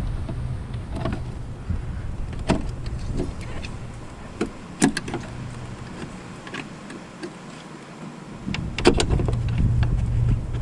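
Scattered clicks and taps of hand tools being worked in a car's headlight area, with pliers and a Torx bit in use, over a low wind rumble on the microphone that drops away in the middle and returns near the end.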